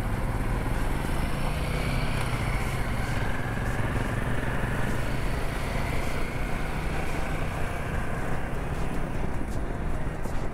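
Motorcycle engine running steadily under way, heard from the bike, with a rush of wind over it.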